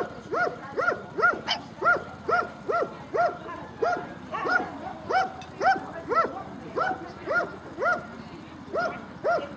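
A dog barking over and over in short, high, yelping barks, about two to three a second, without a break.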